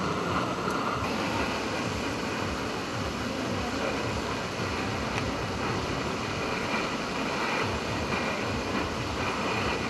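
Cotton candy machine running: a steady whirring rumble from the spinning head and its motor as the floss is wound onto a stick.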